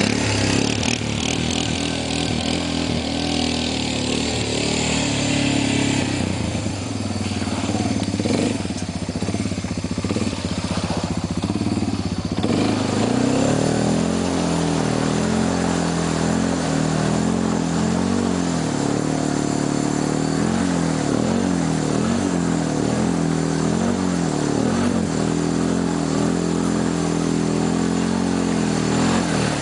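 1991 Honda Fourtrax 300 4x4 ATV's single-cylinder four-stroke engine running, then revving up and down over and over from about halfway in as the quad churns through a water-filled mud hole.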